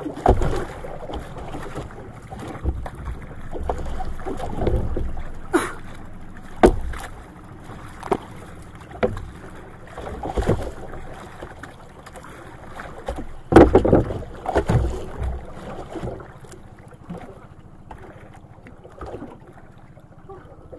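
Sea water sloshing and slapping against a small wooden outrigger boat, with a few sharp knocks on the hull and wind on the microphone.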